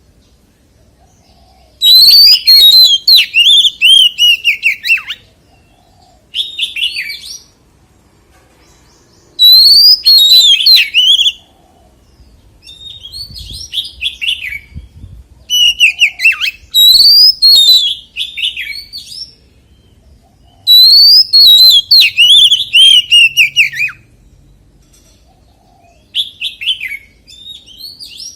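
Oriental magpie-robin singing: about seven loud phrases of warbling, sweeping whistles mixed with higher squeaky notes, separated by pauses of a second or two, one phrase near the middle softer than the rest.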